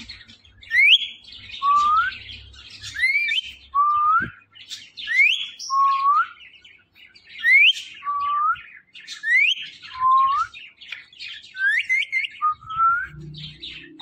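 Caged ring-necked parakeets whistling: a high rising whistle followed by a lower rising whistle, repeated about six times, over scratchy chattering chirps.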